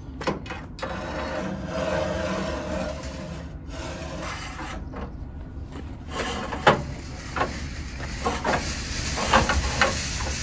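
A steel tube scraping as it is slid through the central tunnel of a VW Beetle floor pan, followed by a series of sharp clicks and knocks, the loudest about two-thirds of the way in.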